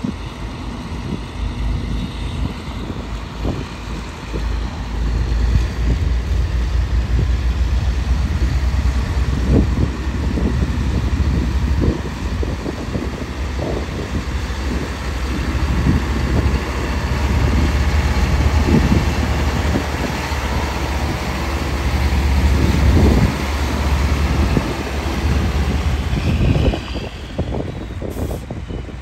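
Diesel engine of a 2000 Mack CH613 tandem-axle tanker truck running as the truck drives past. It is loudest in the middle, as the truck comes closest, and fades near the end as it pulls away.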